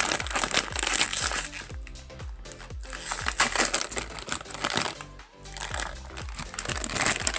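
Background music, with the crinkling of a plastic-foil blind-bag packet being handled.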